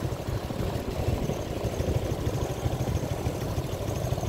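Motorbikes running as they ride along slowly: a steady low engine rumble, uneven and choppy in the bass.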